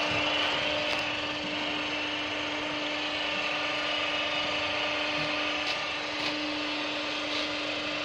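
Ship's winch running with a steady hum as a thick mooring rope is worked on it, with a few faint clicks.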